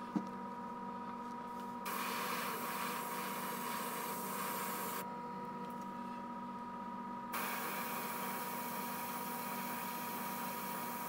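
Iwata gravity-feed airbrush spraying in two stretches of hiss, the first about two seconds in and lasting about three seconds, the second starting again about seven seconds in, over a steady hum with a faint high tone. There is a small click just after the start.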